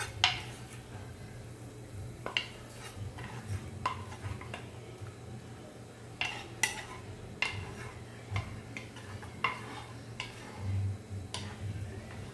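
Kitchen utensils clinking and knocking against cookware, as in stirring and handling pots and dishes. There are a dozen or so irregular strikes, the loudest near the start.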